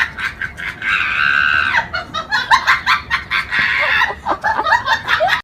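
Fowl squawking: a rapid string of short, high calls with one longer held scream about a second in.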